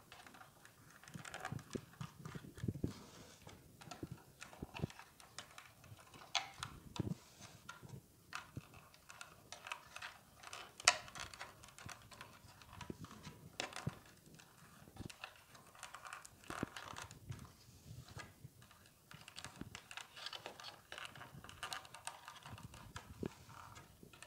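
Light rustling and irregular small clicks of rolled paper weaving tubes being worked around the stakes of a round plywood weaving loom, the tubes tapping against the wood, with one sharper tap near the middle.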